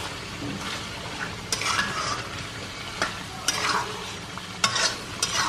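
Steel spatula stirring and scraping chicken pieces in thick masala around a steel kadai, with a scrape about every second over the steady sizzle of the curry frying in ghee.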